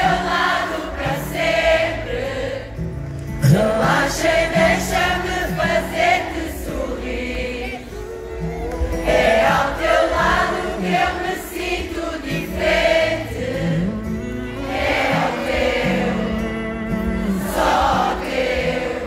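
Live kizomba band music with several voices singing together in a choir-like blend over a steady bass line.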